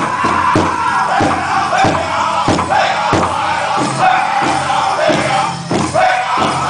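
Powwow drum group singing a chicken dance song: high-pitched voices in unison over a big drum struck steadily about twice a second.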